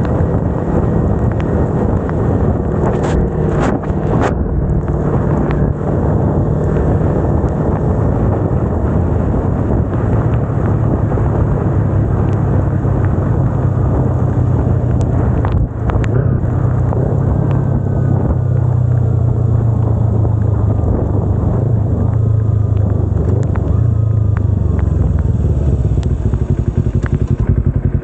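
Kawasaki Ninja 250R's parallel-twin engine running steadily at cruising speed, mixed with wind and tyre noise on a wet road. The engine note eases off near the end as the bike slows behind traffic.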